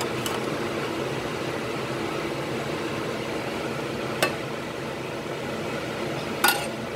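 Squid and onions frying in a pan with a steady sizzle, and a spatula clinking against the pan, once about four seconds in and loudest near the end.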